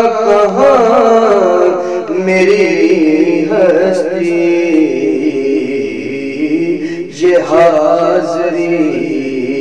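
A male naat reciter singing an Urdu devotional naat into a microphone, drawing out long, wavering melismatic notes, with a brief break for breath about seven seconds in.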